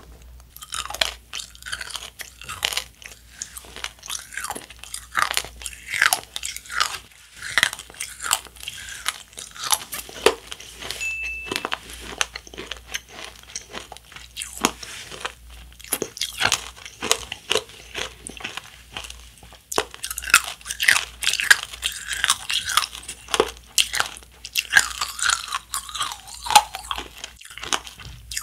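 Nerds Rope candy being bitten and chewed: a dense, irregular run of crisp crunches and crackles as the tiny hard Nerds candies coating the rope break between the teeth over its chewy gummy core.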